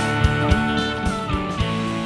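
Background music with a steady beat and a melody that steps downward in pitch, possibly guitar-led.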